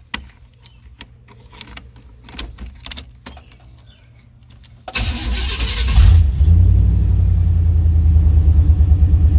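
Key clicking and rattling in a freshly replaced ignition lock cylinder, then about five seconds in the starter cranks for about a second and the 1988 Chevy C1500's engine catches and runs steadily. The engine starting on the key shows that the new lock cylinder works.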